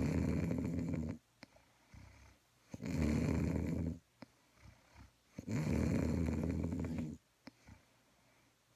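Snoring: three long, rough snores about two and a half seconds apart, each lasting a second or more, with short quiet gaps between them.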